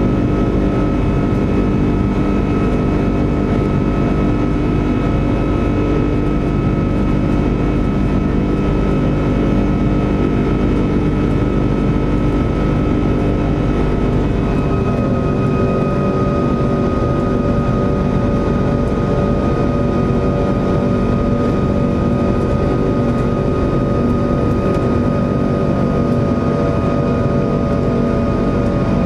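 Airbus A340-600 cabin sound heard from a window seat over the wing during the climb after take-off: a steady jet-engine drone with a rumble and whining tones from the Rolls-Royce Trent 500 engines. About halfway through, the engine tones step down slightly in pitch and the deepest rumble eases.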